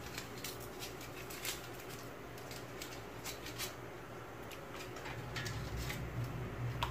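Foil stock-cube wrappers crinkling in short, scattered crackles as they are peeled open and the cubes crumbled into a pot of chickpeas and water, over a steady low hum.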